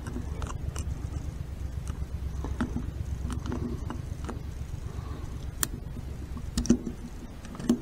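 Snap-ring pliers working a retaining clip off a Harley five-speed transmission countershaft: scattered faint metal clicks and ticks, a little louder near the end, over a steady low hum.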